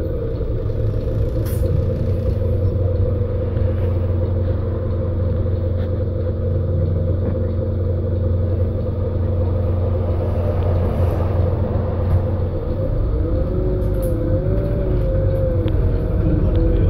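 Volvo single-deck bus (Wright Eclipse Urban 2 body) heard from inside the passenger saloon while under way: a steady low engine and driveline rumble with a constant drone. It grows slightly louder near the end.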